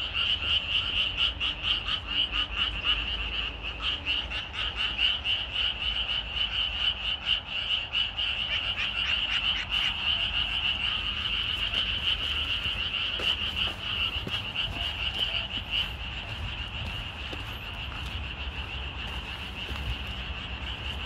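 A dense chorus of many Japanese tree frogs calling at once: rapid, overlapping pulsed calls that run on without a break, thinning slightly over the last few seconds.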